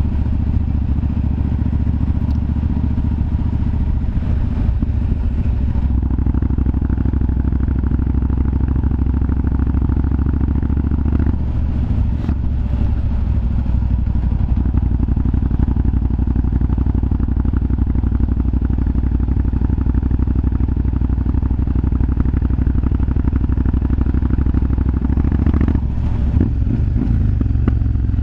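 Yamaha BT1100 Bulldog's 1100 cc V-twin engine running steadily, with a sharp pop from the exhaust about twelve seconds in.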